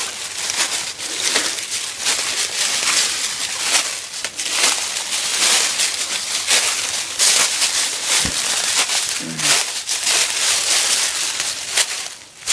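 Dry fallen leaves crunching and crackling under the footsteps of a person and a small dog walking through them. The crackles are irregular and dense, with a short low vocal sound about nine seconds in.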